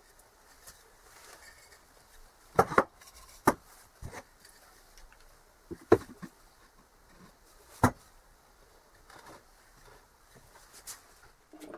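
Wooden objects, among them a turned segmented wooden vase, being handled and set down on a wooden workbench, making several sharp knocks a second or two apart, with quiet shuffling between them.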